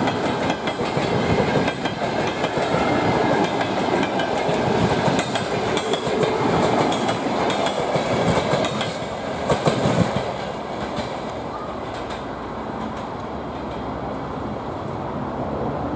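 Passenger coaches of a train rolling past, their wheels clattering over the rail joints. About ten seconds in the last coach goes by, and the clatter gives way to a quieter rumble as the train moves off.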